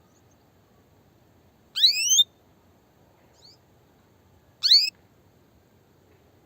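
Female canary giving its mating call: two short, loud rising chirps about three seconds apart, with a faint softer chirp between them, over a low steady hiss.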